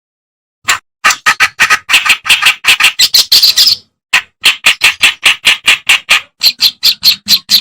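Kerak basi (reed warbler) singing a fast, harsh, chattering run of repeated notes, about four or five a second, starting just under a second in, with a brief pause about four seconds in.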